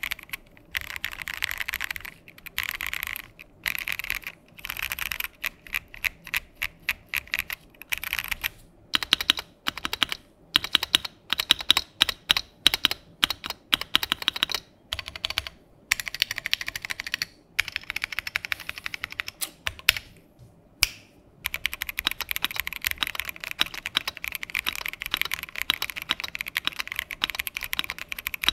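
Typing on a Keychron Q1 Pro mechanical keyboard with Keychron's own switches and KSA keycaps. Short bursts of fast keystrokes give way to a run of slower, louder single key presses in the middle. After a brief pause about twenty seconds in, steady fast typing takes over.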